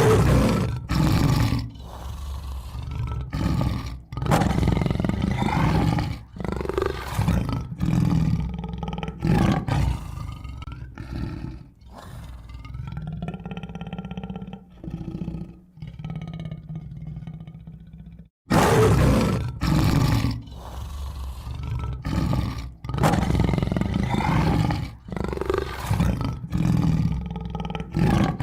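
Tiger roaring and growling in a long series of deep, loud calls, with a short silent break about 18 seconds in before the roaring starts again.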